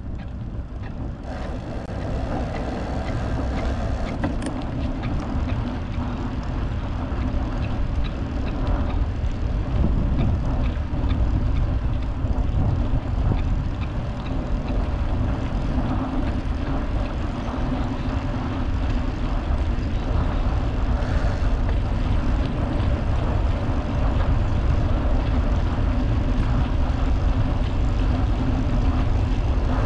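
Wind rumbling on a handlebar-mounted GoPro's microphone, together with tyre noise from a vintage road bicycle being ridden along a paved trail. The sound builds over the first ten seconds or so, then holds steady.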